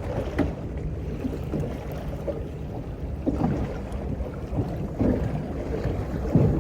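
Water slapping irregularly against the hull of a small boat over a steady low rumble of water and wind.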